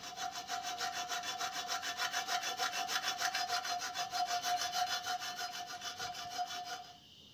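Hacksaw blade sawing back and forth through a thin steel exhaust tail pipe in quick, regular strokes of about four to five a second. A steady high ring runs under the rasping. The blade is dull, so the cut goes slowly. The sawing stops shortly before the end.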